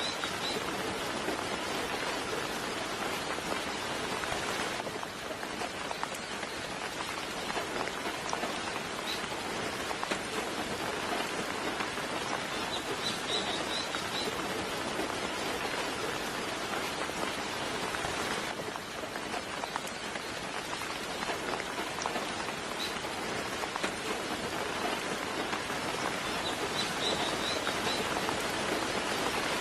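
Steady, soft rain falling on a surface, with a bird giving short high chirps a handful of times.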